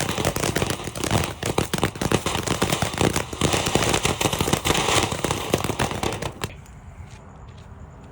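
Consumer firework fountain burning with a dense, rapid crackle, dying down about six and a half seconds in.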